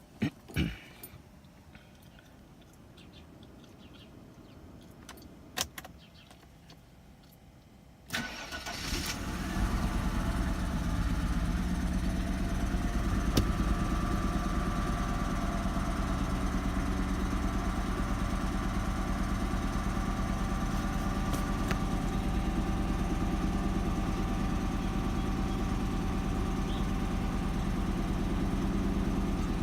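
Mercedes-Benz W124 engine cranked and catching about eight seconds in, after a few faint clicks, then idling steadily with its air pump running.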